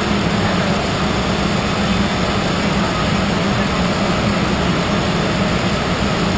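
Steady rush of airflow and jet engine noise inside a private jet's cockpit during descent, with a constant low hum underneath.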